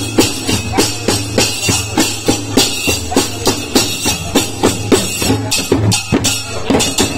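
Several ghumots (Goan clay pot drums with skin heads) played together by hand in a fast, steady rhythm. There are about two accented strikes a second, with lighter strokes between them.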